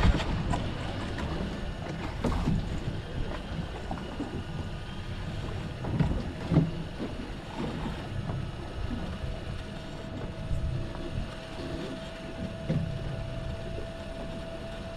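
Fishing boat at sea: steady wind and water noise with a few knocks on the hull or deck. About nine seconds in, a faint, steady, high whine joins in and holds.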